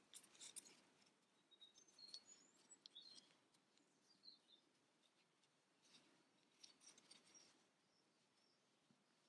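Near silence: faint rustling and soft clicks of fingers handling a small crocheted toy, with a few faint, short high chirps in the first half.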